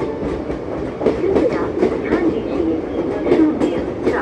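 A passenger train's coaches rolling past a platform without stopping: a steady rumble with the clickety-clack of wheels over rail joints.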